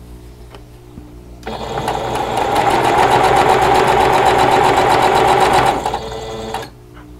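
Singer sewing machine stitching two fabric squares together: it starts about a second and a half in, speeds up to a steady fast run of needle strokes, slows near the end and stops.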